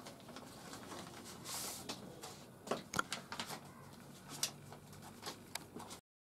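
Faint rustling and crinkling of a paper letter being unfolded and handled, with a few soft clicks in the middle. The sound cuts off suddenly near the end.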